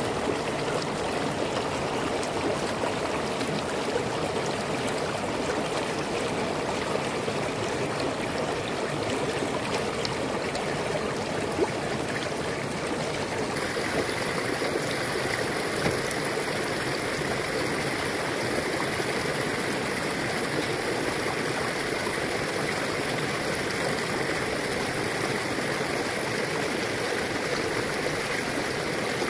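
Shallow river rushing and babbling over stones and pebbles, a steady flow; about halfway through the sound turns brighter, with a couple of brief knocks.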